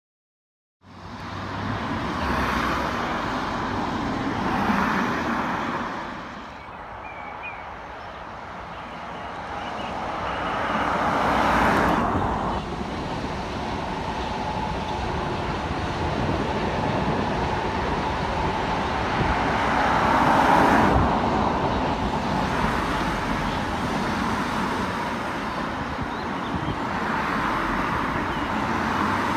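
Electric passenger train passing below and running away into the tunnel: a continuous rumble and rush of wheels on rail that swells about twelve seconds in and again around twenty seconds.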